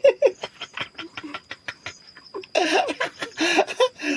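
People laughing: a quick run of rhythmic 'ha-ha' pulses at the start, breathy clicks, then another burst of laughter about two and a half seconds in.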